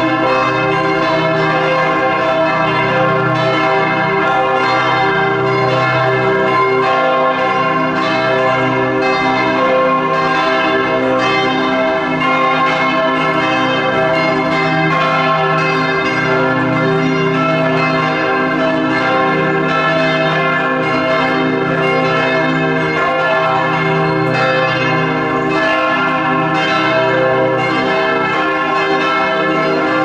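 Church bells of Bern's Heiliggeistkirche, the church by the station, ringing together in a continuous peal. Several bells overlap, each stroke ringing on into the next.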